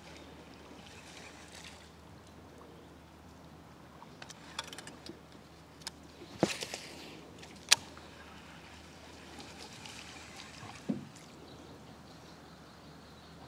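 Faint water sounds from a small boat on a canal, broken by a handful of scattered knocks and splashes: a cluster about four to seven seconds in, one sharp click near eight seconds (the loudest), and a duller thump near eleven seconds.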